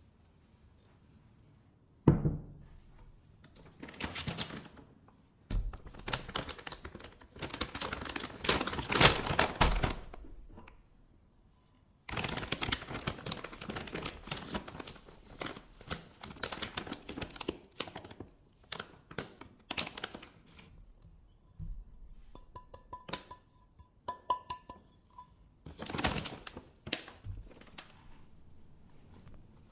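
A glass mixing bowl set down on a wooden tabletop with a thunk, then the plastic bag of almond flour crinkling and rustling as flour is scooped out and poured into the bowl. Near the end, a few light clinks on the glass give a brief ringing tone.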